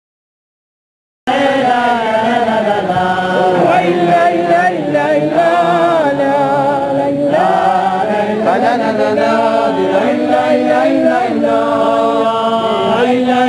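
A large group of Hasidic men singing a melody together, with voices wavering up and down. It cuts in about a second in, after a moment of dead silence where the videotape drops out.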